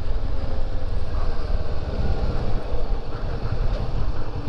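Motorcycle on the move: engine rumble mixed with wind rush over the camera's microphone, steady throughout.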